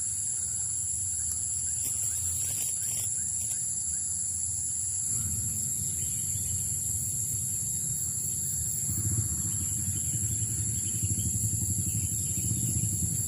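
Outdoor ambience: a steady high insect drone over a low rumble that swells about five seconds in and again around nine seconds.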